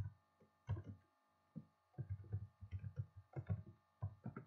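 Computer keyboard typing: a couple of separate key presses, then a quicker, irregular run of keystrokes from about two seconds in.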